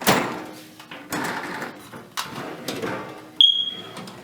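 Drawers of a Craftsman metal tool chest sliding open and shut on ball-bearing slides, several strokes about a second apart. Near the end comes a short, sharp metallic ring.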